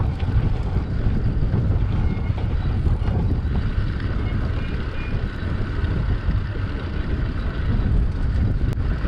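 Wind buffeting the microphone of a moving camera: a steady, uneven low rumble.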